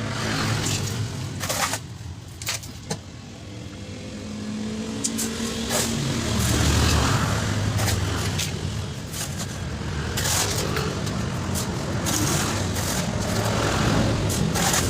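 Vehicle engine running and revving: it swells about six seconds in, eases off, then builds again near the end, with a few sharp knocks in the first seconds.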